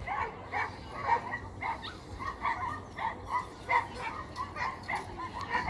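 A dog barking over and over in short, quick barks, about two to three a second.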